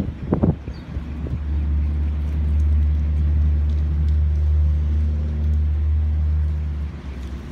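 A motor vehicle engine running close by: a steady low hum that sets in about a second in and falls away near the end, with a short higher sound just at the start.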